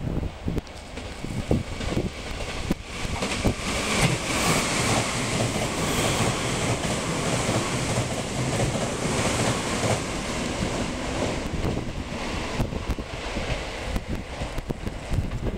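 Meitetsu limited express electric train running through a station at speed without stopping, its wheels clattering on the rails. The rushing noise swells about three seconds in and eases off over the last few seconds as the cars go by.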